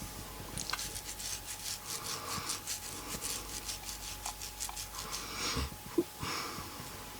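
A sleeping man snoring, with rasping, rattling breaths. There is one sharp click about six seconds in.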